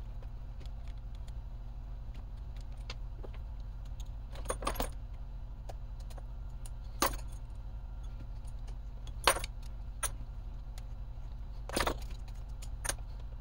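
Hand tools and loose RC car parts clinking and knocking on a workbench: a handful of sharp metallic clicks a second or two apart, over a steady low hum.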